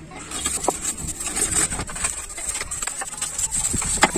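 Water jet spraying onto a car's muddy plastic front bumper to wash it: a steady hiss with spattering.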